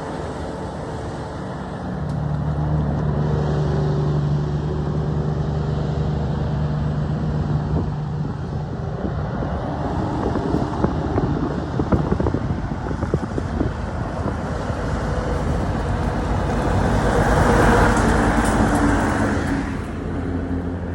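Heavy diesel truck on a highway: a steady engine note, then a rapid pulsing exhaust rattle, getting loudest as the truck passes close, then fading.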